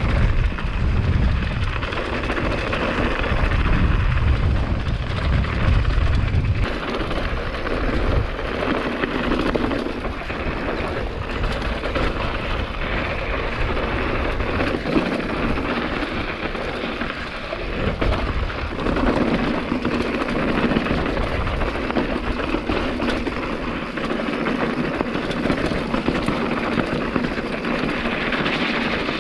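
Wind buffeting the microphone over the rumble and rattle of a hardtail mountain bike rolling down a rough dirt road. The low wind rumble is heaviest in the first six seconds or so.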